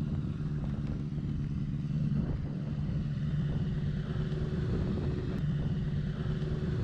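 A sport motorcycle's engine idling steadily.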